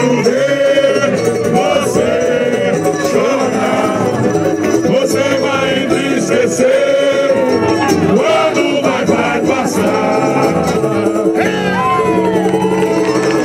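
A live samba-enredo sung by male voices with cavaquinho and guitar accompaniment.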